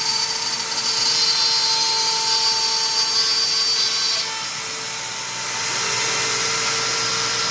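CNC router spindle running at about 32,000 rpm, with a steady high whine, while the bit cuts through the workpiece with a hiss. About four seconds in, the high cutting hiss drops away and the sound dips. Then it swells again as the spindle keeps running.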